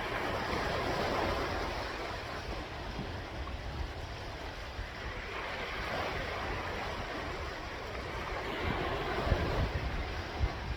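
Sea waves washing onto the shore, swelling and fading about three times, over a steady low rumble of wind on the microphone.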